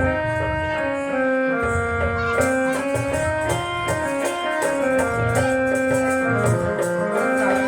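Organ-like electronic keyboard melody of held notes stepping from pitch to pitch, over a percussion beat.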